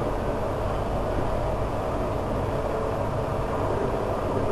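Steady rushing of a gas stove burner on a raised flame under a pan of curry at the boil.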